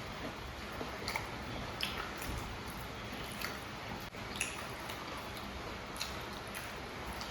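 People chewing and biting into crispy samosas, with irregular short crunches and wet mouth sounds over a steady background hiss.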